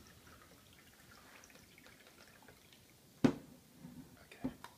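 A faint trickle of coffee pouring from a Bodum French press into a ceramic mug. About three seconds in, the press is set down on a wooden cutting board with a sharp knock, followed by a couple of lighter knocks.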